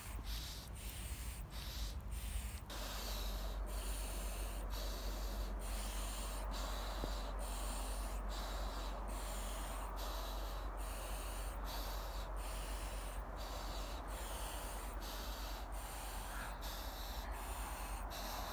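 A man breathing hard and rhythmically through a training mask during exercise, a hissing breath about one and a half times a second. A steady low rumble runs underneath.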